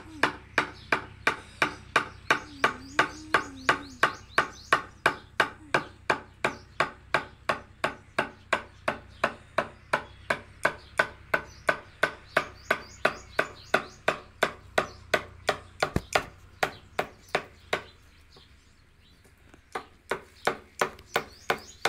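Metal-headed hammer striking a wooden-handled chisel as it carves grooves into a wooden plank, in a steady rhythm of about two to three blows a second. The blows stop for about two seconds near the end, then start again.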